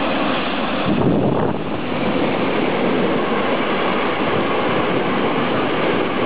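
Freight train of cement silo wagons rolling past behind an electric locomotive: a steady rushing rumble of wheels on rails, loudest about a second in as the locomotive goes by.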